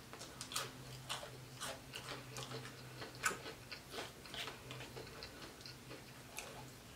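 Close-miked eating: faint, irregular wet clicks and smacks of chewing, with a fork working through spaghetti, over a low steady hum.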